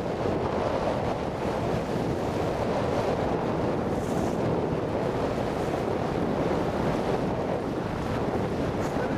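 Steady wind buffeting the microphone over choppy sea water washing around a boat, with a brief faint hiss about four seconds in.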